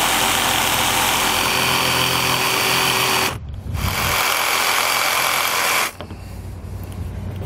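Cordless jigsaw cutting a square opening through an RV baggage compartment door panel. It runs steadily in two stretches, with a brief break a little past three seconds in, and stops about six seconds in.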